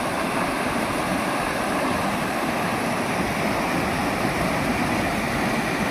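Floodwater from a swollen stream pouring over a low causeway: a steady rushing noise of churning water with no let-up.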